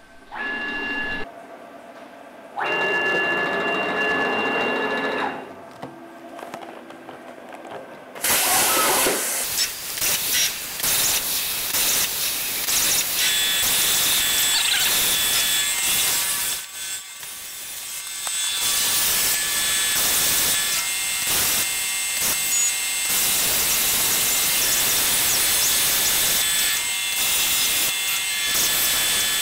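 CNC plasma cutting table at work: a few seconds of steady whining tones, then about eight seconds in the loud hiss of the plasma arc cutting sheet metal sets in and carries on, dropping away briefly a few times as the torch moves between cuts.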